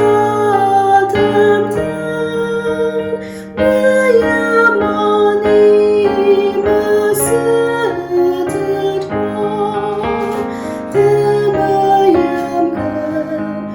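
Slow keyboard music: a melody moving over held bass notes and chords.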